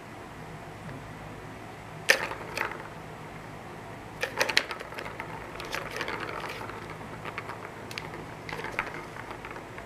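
Cat pawing at a plastic tiered ball-track toy: the balls knock and rattle around the plastic tracks in short bursts of sharp clicks, the loudest a little over two seconds in, with more clusters through the second half.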